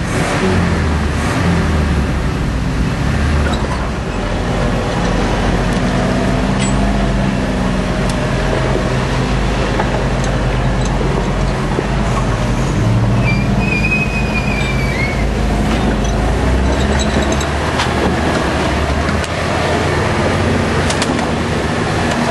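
Off-road 4x4 truck engines running and revving unevenly as the trucks crawl over rough trail terrain, the low engine note rising and falling throughout.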